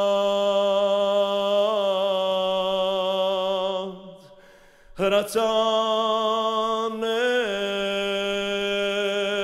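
A man singing an Armenian song in long, slow, held notes that waver slightly as they change pitch. He breaks off about four seconds in, and a second later starts the next long note with a click.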